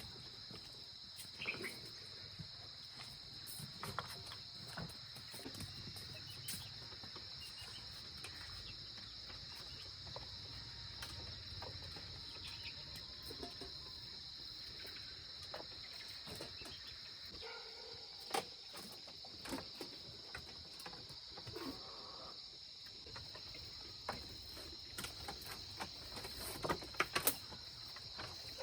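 Steady high-pitched drone of an insect chorus, with scattered knocks and clicks over it and a quick run of sharper knocks near the end.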